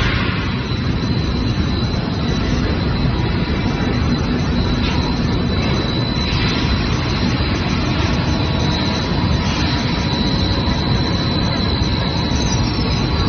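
Stretch-film cast extrusion line running: a steady, loud machinery drone with a thin, constant high whine over it. A brief rustle comes right at the start.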